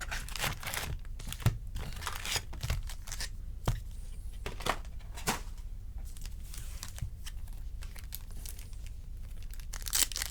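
Trading-card packaging being torn open and crinkled, with scattered short rustles and clicks of handling.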